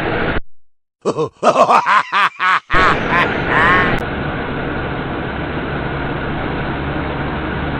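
A short, loud burst of voice-like grunts and laughter about a second in, then steady engine and road noise heard inside a semi-truck's cab.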